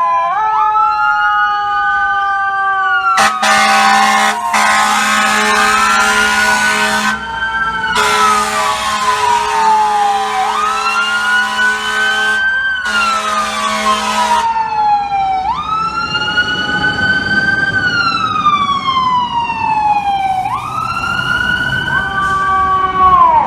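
FDNY fire truck's mechanical Q siren winding up quickly and coasting down slowly, over and over, as the rig responds to a call. Its air horn sounds three times over it, the first two blasts about four seconds each and the third shorter, all in the first part.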